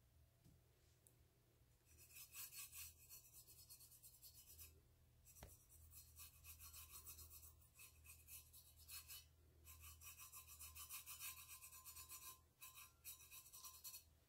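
Fingertips rubbing paint over the painted surface of a stainless steel tumbler: a faint, scratchy rubbing in several stretches of a few seconds each, with short pauses between, and a single click about five seconds in.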